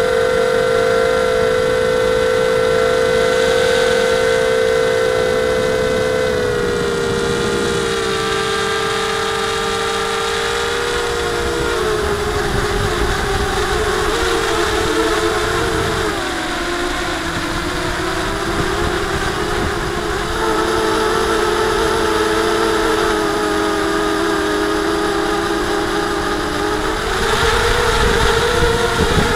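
Blade 200 QX quadcopter's brushless motors and propellers whining steadily, heard close up from on board. The pitch steps down a few seconds in and again a little later, stays lower through the middle, and climbs back near the end as the throttle changes.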